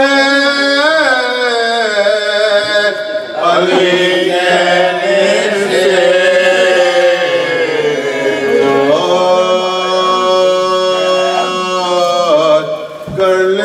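Melodic devotional chanting by a voice at a Shia majlis, a religious lament sung in long held notes that waver and slide in pitch.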